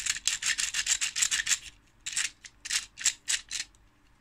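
3D-printed print-in-place three-cylinder model engine turned by hand: its plastic pistons, connecting rods and crankshaft click and rattle in quick runs, a dense stretch over the first second and a half, then a few shorter bursts that stop shortly before the end.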